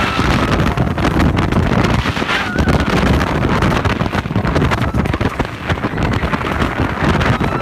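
Wind rushing over a phone's microphone on a moving roller coaster, with the train's low rumble on the track; loud and steady.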